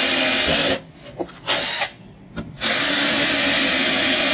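A 12V cordless drill driver bores into wood under load. It runs steadily for about the first second and stops. It gives a few short bursts, then runs steadily again from a little under three seconds in.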